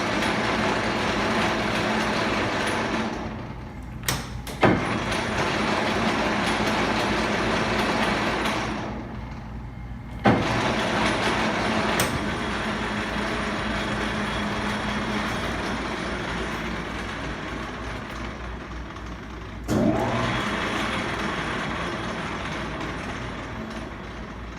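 A Monarch 20-inch engine lathe running under power, its geared headstock giving a steady whirring hum. The running fades off twice and comes back each time, with several sharp clunks as the controls are shifted.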